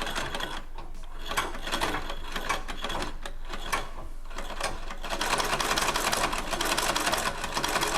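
Singer 128K treadle sewing machine running while winding a bobbin: irregular clicking as the pedal is worked unevenly, then a faster, steady rattle from about five seconds in as the machine settles into turning forward.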